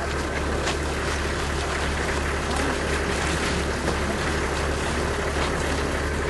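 Steady wind noise on an outdoor microphone: a constant low rumble with hiss over it, with faint voices from a surrounding crowd.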